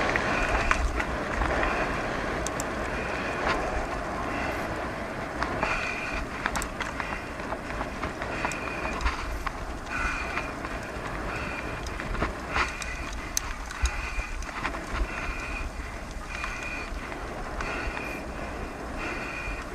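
Mountain bike rolling fast over a rough forest track behind a pulling dog: steady tyre noise and low wind rumble on the microphone, with scattered rattling clicks and short high squeaks every second or two.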